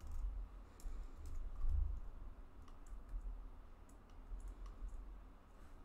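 Scattered light clicks of computer keyboard keys as code is typed and edited, a few keystrokes at a time, over a low steady rumble.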